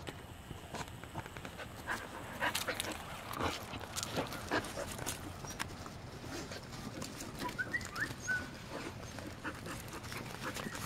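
Samoyed puppies playing in snow: a run of short scuffles and steps, busiest a couple of seconds in, with a few brief high-pitched puppy squeaks about eight seconds in.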